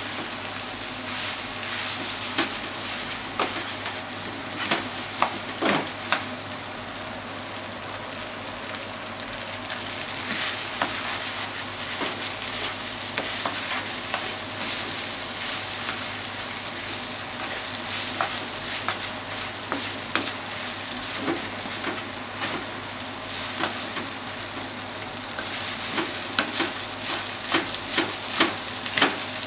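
Chicken fried rice sizzling in a nonstick frying pan while a spatula stirs and turns it, with short scrapes and knocks of the spatula against the pan over a steady sizzle; the knocks come thicker about five seconds in and again near the end.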